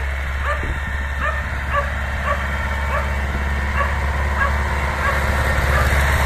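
Tractor engine running steadily, with a dog yipping in short, repeated barks about twice a second over it.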